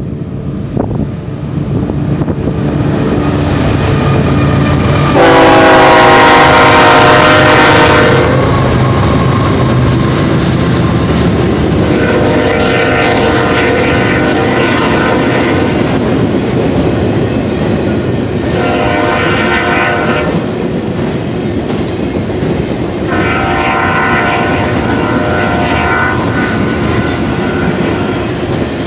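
BNSF freight locomotive horn sounding four blasts, long, long, short, long: the grade-crossing warning. The first and loudest comes about five seconds in as the GE ET44C4-led locomotives pass. Under the horn, the diesel locomotives rumble steadily and the double-stack container cars clatter by on the rails.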